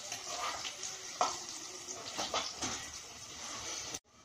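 Shallots, green chillies and curry leaves sizzling in hot oil in a small pan, with a metal spoon stirring and clinking against the pan a few times. The sound cuts off abruptly near the end.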